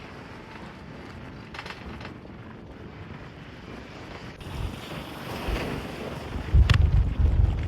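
Strong wind buffeting the microphone: a steady rushing hiss, then heavy low rumbling gusts that grow much louder about six and a half seconds in.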